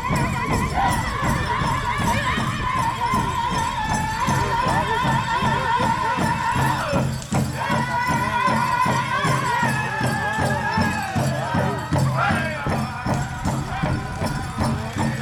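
Powwow drum group singing in high, wavering voices over a steady drumbeat on a large powwow drum, accompanying the dancing, with a brief break in the singing about halfway through.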